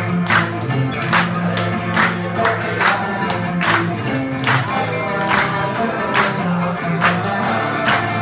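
Live Syrian folk music: a group of men singing together over acoustic guitars, with performers and audience clapping in time, a little over one clap a second.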